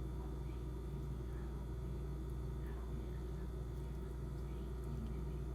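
A steady low hum with nothing else standing out.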